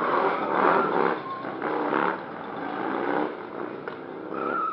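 Motorcycle engines revving in repeated bursts during stunt riding, the pitch rising and falling with each burst, with a short high whine near the end.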